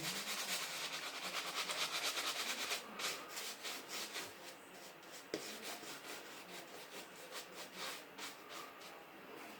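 A hand rubbing over a tough 9-10 day growth of beard stubble, a quick scratchy rasping of repeated strokes. The strokes are fast for the first three seconds, then come sparser and fainter.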